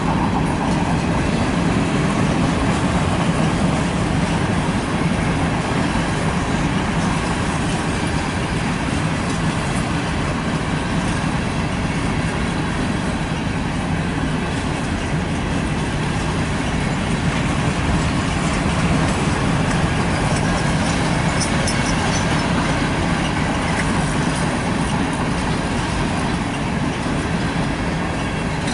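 Freight cars of a CSX manifest train (boxcars and covered hoppers) rolling past, giving a steady rumble and clatter of steel wheels on the rails.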